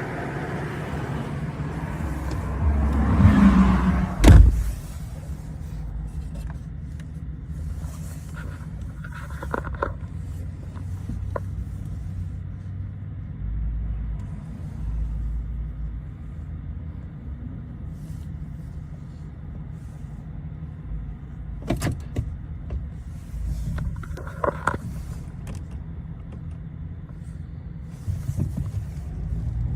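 2010 Chevrolet Silverado 1500 pickup running with a steady low rumble, broken by a loud sharp clunk about four seconds in and more knocks near the end. The truck's transmission is faulty.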